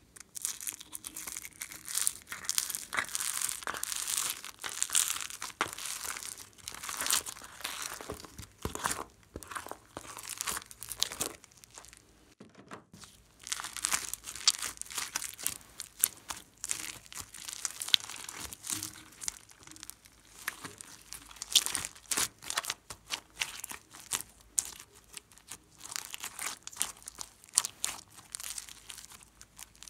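Glossy slime packed with small foam beads being squeezed and stretched by hand, giving a dense crackling of rapid clicks, with a short pause near the middle.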